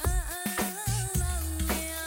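Upbeat Tamil film-song music: drum hits and heavy bass under a held lead melody that bends and slides in pitch during the first second or so.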